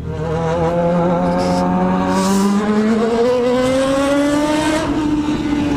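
Yamaha XJ6 inline-four with a 4-into-1 aftermarket exhaust accelerating hard in one gear, its pitch rising steadily for about five seconds and easing slightly near the end.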